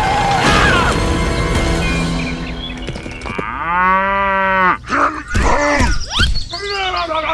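A cow mooing: one long moo about three and a half seconds in, followed by several shorter calls.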